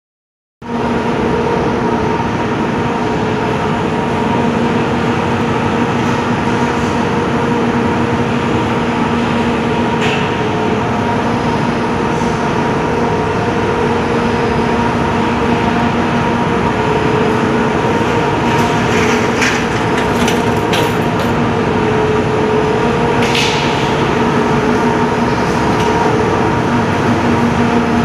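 Steady mechanical drone with a constant low hum, with a few short clicks and rattles scattered through it.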